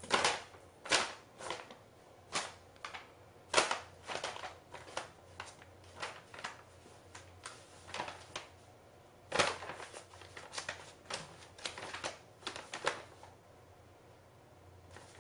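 Paper carrier bag crackling and rustling in sharp, irregular bursts as a cat moves and scrabbles about inside it. The crackling stops about a second and a half before the end.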